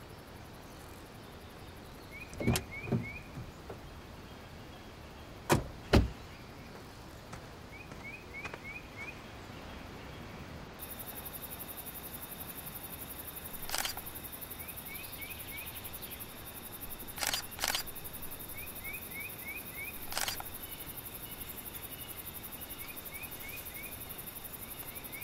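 Outdoor ambience with a bird repeating a short chirping phrase every few seconds, broken by sharp thuds and clicks: two loud pairs in the first six seconds and a few softer ones later. About halfway a steady high hiss with a thin tone comes in.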